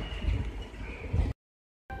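Open-air railway-platform ambience: an uneven low rumble with faint thin high tones above it. The sound cuts out to dead silence after about a second and a quarter and comes back just at the end.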